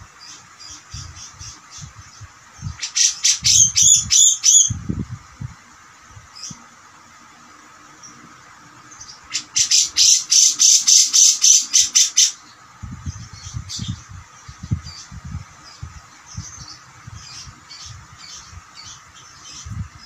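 Caged cucak jenggot (grey-cheeked bulbul) calling in two loud runs of rapid, harsh repeated notes at about five a second, one about three seconds in and a longer one near the middle, with softer scattered chirps between them. Soft low thumps sound throughout.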